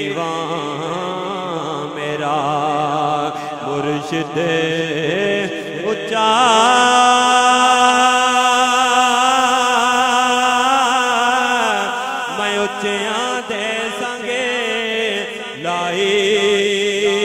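A man singing a naat into a handheld microphone in long, drawn-out, ornamented notes with a wavering vibrato. The longest note is held from about six seconds in to about twelve seconds in.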